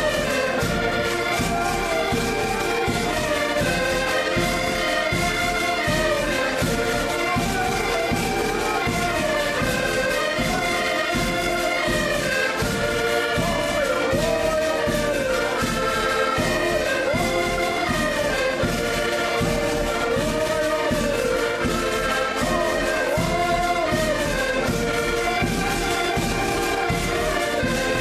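A group of accordions playing a lively folk dance tune together, the melody rising and falling over a steady beat.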